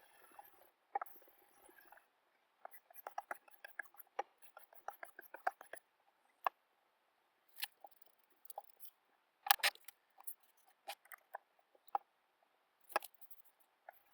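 Kitchen knife work: irregular crisp ticks and crackles, a quick run of them about three to six seconds in, then scattered sharper snaps, the loudest about nine and a half seconds in.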